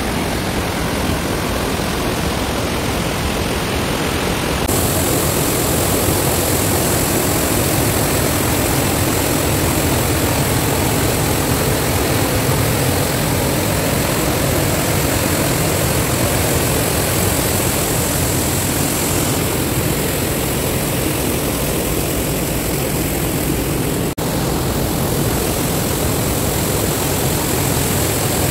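Small waterfall rushing steadily as the stream pours through a narrow carved rock channel into a pool, with a brief break in the sound near the end.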